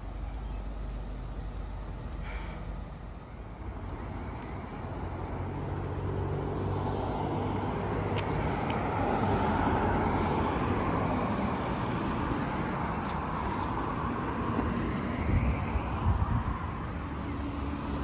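Road traffic: a car passes close by, its tyre and engine noise swelling to a peak about halfway through and then fading. There are a couple of low bumps near the end.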